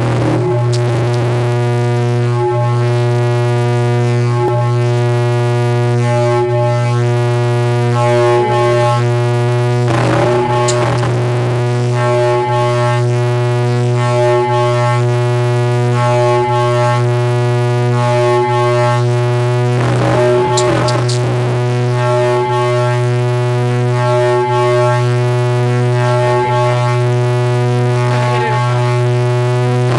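Car-audio SPL system with DIECOCK DM-15PRO subwoofers playing a loud, steady low bass tone with a buzzy stack of overtones, held without a break: a sound-pressure measurement run, which reached 153.6 dB.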